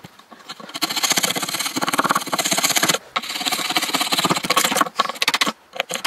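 Steel wood chisel paring and scraping out a mortise in a Rimu rifle stock, in two long runs of rapid scraping strokes broken by a short pause about three seconds in.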